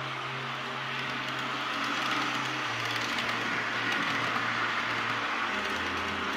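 H0-scale model passenger train rolling along the track, a steady rushing of wheels on the rails that grows louder toward the middle as it passes. Faint low music notes are underneath.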